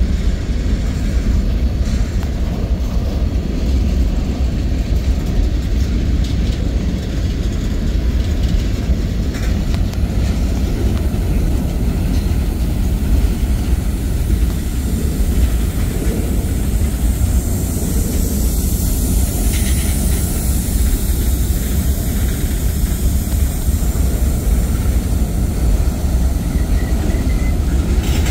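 Freight cars of a mixed manifest train, mostly covered hoppers, rolling past close by, wheels on rail giving a steady heavy rumble. A higher hiss swells in a little past the middle.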